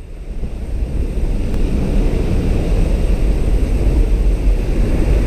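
Steady low rumble of a skydiving jump plane's engine and slipstream, heard from inside the cabin near the open door. It grows a little louder over the first two seconds, then holds.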